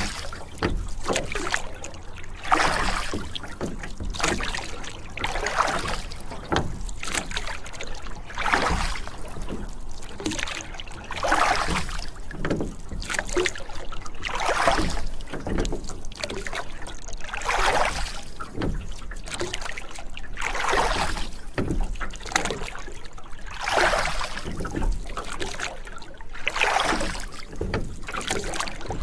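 Rowboat being rowed: oars sweep and splash through the water in a steady rhythm, about one stroke every three seconds, with small knocks between strokes.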